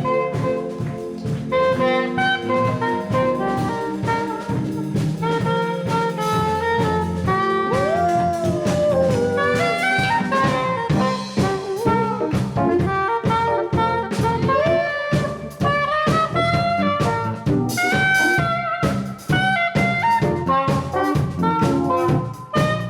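Live jazz band playing, with a soprano saxophone carrying the melody over a drum kit.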